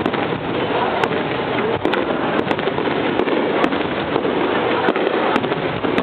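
Starmine fireworks barrage: a dense, continuous din of overlapping shell bursts, with about ten sharp cracks standing out over six seconds.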